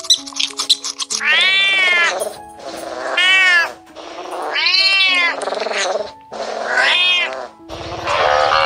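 Domestic cat meowing four times: long, drawn-out meows that rise and fall in pitch, over background music. Quick high clicking chirps come before the first meow, and near the end a steady noisy outdoor sound takes over.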